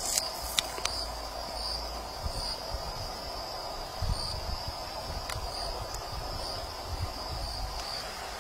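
Crickets trilling steadily in one continuous high-pitched tone that swells slightly, with a few faint clicks as fruit peel is pulled apart.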